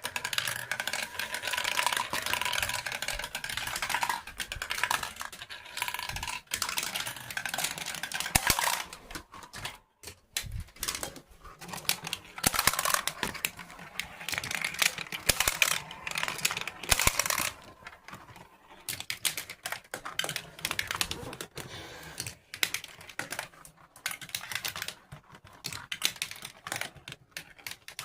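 Marbles rolling and clattering through a marble-race course, with many quick clicks and knocks.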